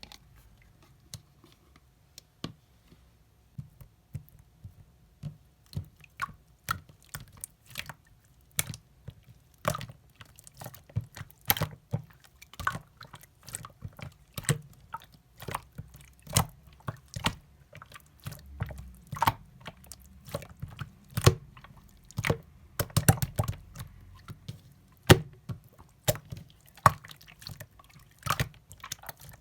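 Slime being squeezed and pressed by hand, making irregular wet clicks and bubble pops. They are sparse at first, then come fast and loud.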